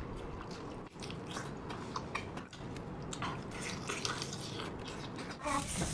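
Close-up wet mouth sounds of eating sauce-coated braised octopus: chewing, sucking and lip-smacking on the tentacles, heard as a string of short, scattered clicks and smacks. The sound breaks off briefly twice, about a second in and about two and a half seconds in.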